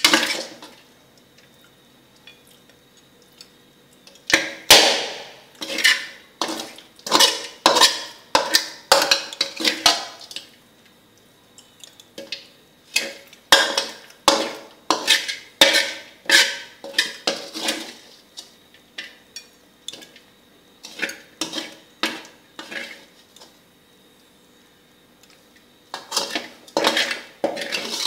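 Spatula scraping and knocking against a metal pan in quick runs of sharp strokes, scraping the last of a stir-fry out of the pan. There are quiet pauses between the runs, with one last burst near the end.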